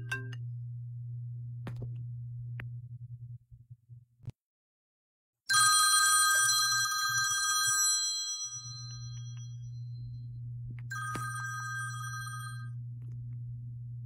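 Smartphone alarm ringtone chiming: a sudden loud burst about five and a half seconds in that fades over two or three seconds, then a shorter burst about eleven seconds in. A steady low hum runs under it, broken by a short silence just after four seconds.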